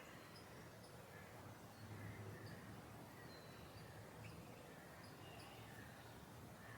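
Faint garden ambience: scattered short bird chirps over a steady low background hum, which swells slightly about two seconds in.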